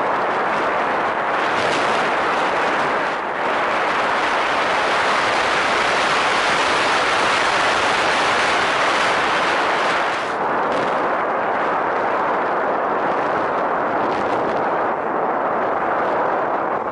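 Onboard recording from a radio-controlled model airplane in flight: a loud, steady rush of airflow and motor noise on the camera's microphone. It dips briefly about three seconds in and again about ten seconds in, and turns duller near the end.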